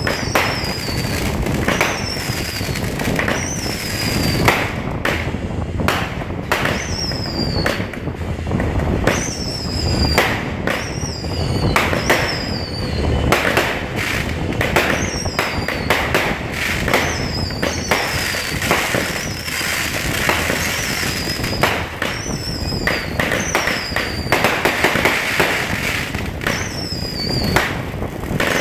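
Consumer fireworks going off in a rapid string: repeated sharp pops and bangs as shots launch from a ground device and burst overhead, with short falling whistles about once a second and a hiss of sparks that grows stronger in the second half.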